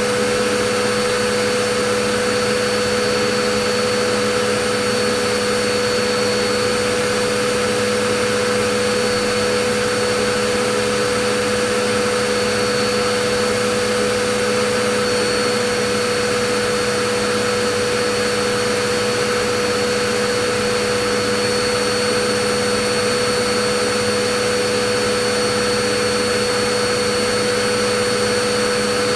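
Vacuum cleaner running steadily: a constant motor hum and whine over an even rushing hiss, unchanging throughout.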